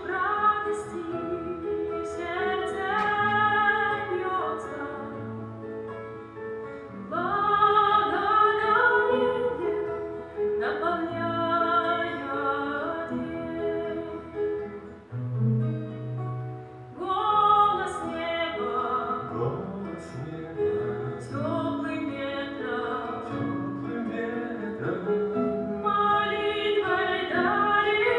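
A woman singing a song with acoustic guitar accompaniment, in long phrases with a wavering vibrato.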